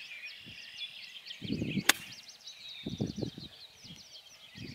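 A chorus of birds chirping continuously, many quick calls overlapping. A single sharp click about two seconds in is the loudest sound, with a few low muffled bumps around it.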